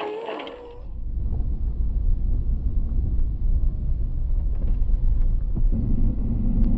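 Steady low rumble of a car driving slowly, picked up by a dashboard camera inside the cabin. It starts about a second in.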